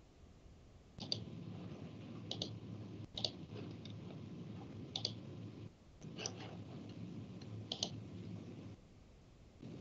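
Computer mouse clicking about six times, sharp single clicks a second or so apart, over the faint low hum of an open microphone.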